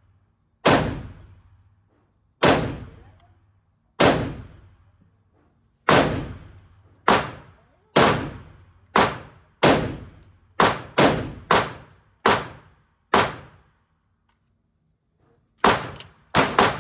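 Semi-automatic 10 mm pistol firing shot after shot, each shot trailing a ringing echo. The first shots come about one and a half seconds apart, then closer together. After a pause of about two seconds, a rapid string of shots follows near the end.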